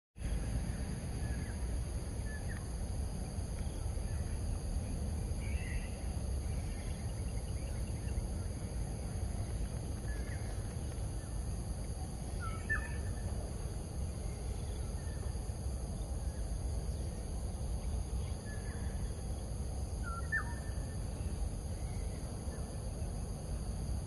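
Tropical forest ambience: a steady high insect drone with scattered short bird chirps and calls, a few of them quick whistled sweeps, over a steady low rumble.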